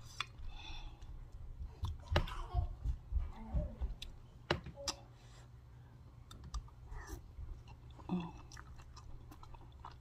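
Close-up chewing and mouth sounds of a person eating gumbo and rice, with a few sharp clicks scattered through.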